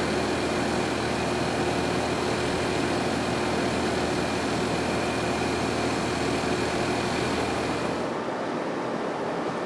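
Grove GMK6350 all-terrain crane's diesel engine running steadily during a lift. The low engine note drops away about eight seconds in, leaving a fainter steady hiss.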